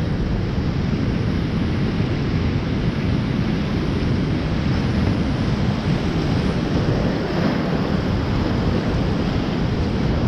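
Steep-creek whitewater rushing steadily and loudly around a kayak running a rapid, picked up at close range on the paddler's GoPro, with a deep, even roar.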